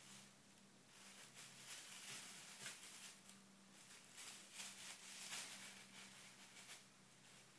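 Faint crinkling and rustling of a thin plastic bag in short, irregular scrapes as a cat paws and bites at it, over a low steady hum.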